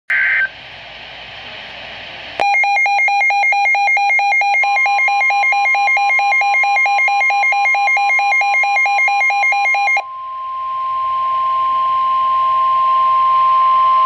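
Midland NOAA weather radio receiving an emergency alert. A brief screech of SAME digital header data comes at the start. From about two seconds in the radio's own alert alarm beeps, pulsing about four times a second. Under the beeps the steady NOAA Weather Radio 1050 Hz warning tone begins, and it carries on alone after the beeps stop about ten seconds in.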